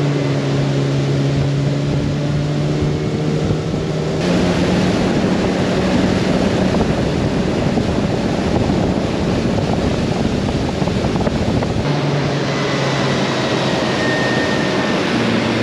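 Motorboat engine running steadily as the boat travels across the water, with wind and water rushing over it. The engine note steps up about four seconds in and drops back near twelve seconds.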